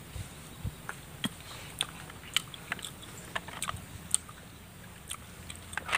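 Close-up eating sounds of a person sucking cooked snail meat from the shells and chewing it: irregular sharp wet clicks and smacks, about a dozen spread over several seconds.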